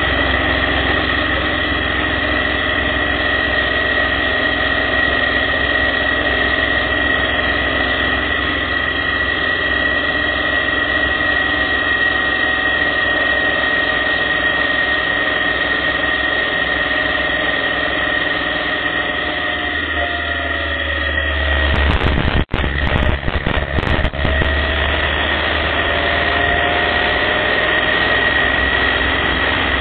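Motorcycle engine running at a steady road speed, with wind noise and a steady high-pitched whine. About 21 to 24 seconds in, a burst of low rumble and a few sharp crackles cut in briefly.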